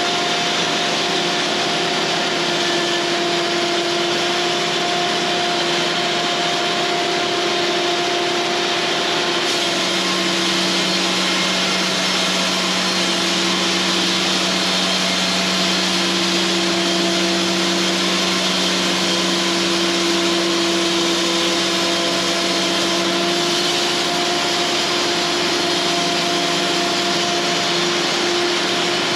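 Cooks AC36 bandsaw sawmill running, a steady machine hum with a high whine. A lower tone joins about ten seconds in and drops out again about fourteen seconds later.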